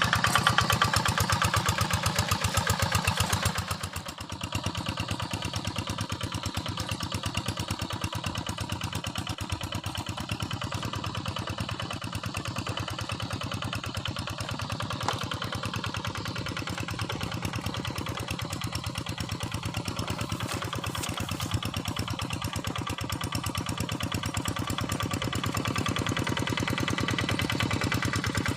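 Single-cylinder engine of a Quick Impala two-wheel hand tractor running steadily with an even, rapid firing beat. It is louder for the first three seconds or so, drops about four seconds in, and runs on steadily at the lower level.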